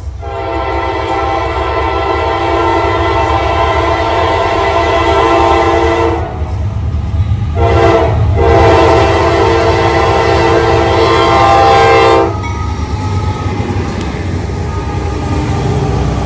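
Norfolk Southern diesel freight locomotive's air horn blowing the grade-crossing signal: a long blast of about six seconds, a very short one, then another long blast that cuts off about twelve seconds in. The locomotive's diesel engine rumble and wheels on rail follow as it passes close by.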